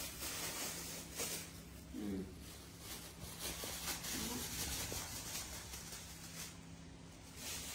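Steady hiss of falling rain, swelling a little now and then, with two short, soft voiced sounds about two and four seconds in.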